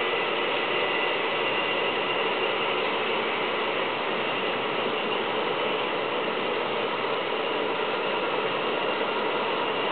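Model train's freight cars rolling steadily past on the layout track: an even mechanical rattle of small wheels on rail, with no change in level.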